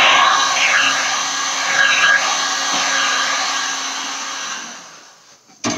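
Heat gun blowing hot air over wet resin on a cradle board: a steady rush of air with a low motor hum, fading out about five seconds in. A sharp knock comes near the end.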